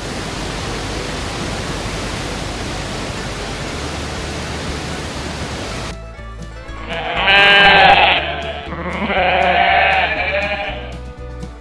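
A steady hiss, then two loud, wavering animal calls rich in overtones, each lasting about a second and a half, starting about seven and nine seconds in.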